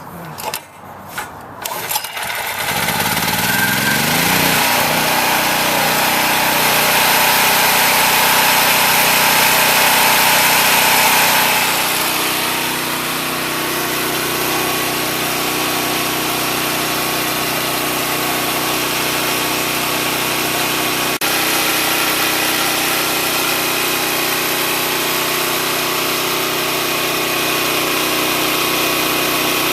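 Chicago Electric portable generator's 7 HP OHV engine being recoil-started: a few short sounds, then it catches about two seconds in, rises in pitch as it spins up and settles into a steady run. It drops a little in level at about twelve seconds, and there is a brief click about twenty seconds in.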